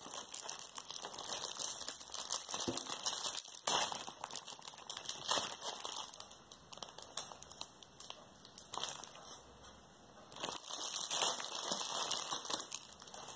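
Shiny red metallic wrapping of a chocolate Easter egg crinkling and crackling irregularly as it is handled and pulled open by hand. It dies down for a couple of seconds about eight seconds in, then picks up again.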